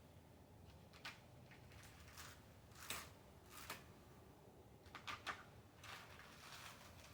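Fibrous coconut husk being pulled and torn off the shell by hand: a handful of short, faint, scratchy rips and rustles at uneven intervals.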